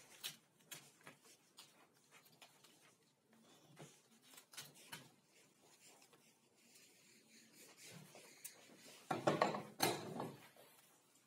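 Faint scattered clicks and rustles of magazine paper being handled and cut with a utility knife. About nine seconds in comes a louder, second-long burst of knocks and shuffling as things are handled on the wooden sled.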